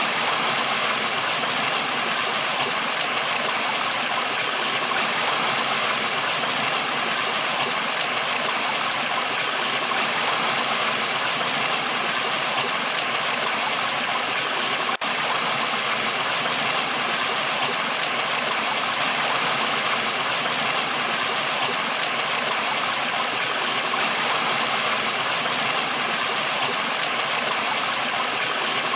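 River water flowing in a steady, even rush, with one momentary dip about halfway through.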